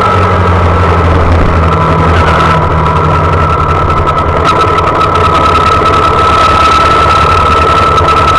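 Honda Monkey mini-bike's small single-cylinder four-stroke engine running at a steady speed while riding, picked up close by a camera mounted on the handlebar. The deep low end of the engine sound thins out about two and a half seconds in.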